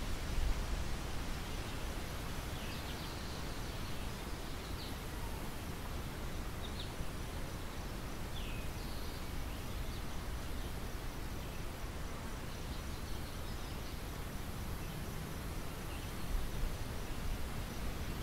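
Steady wind noise over open farmland, with a low rumble that swells briefly near the start and again near the end, and a few short, high bird chirps scattered through the middle.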